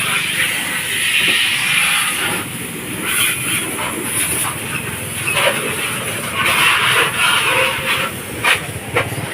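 Water jet spraying onto a car's body during washing: a loud hiss that swells and eases several times as the spray moves, with a few short clicks.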